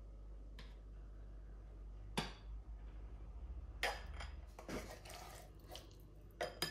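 Light clinks and knocks of a serving spoon against a glass bowl and a plate as rice is dished up: a handful of scattered short taps over a faint steady hum.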